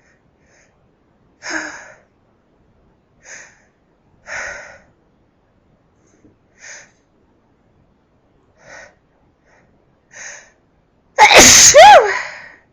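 Several short, sharp breaths, spaced a second or two apart, as a sneeze builds, then one very loud voiced sneeze near the end with a falling pitch.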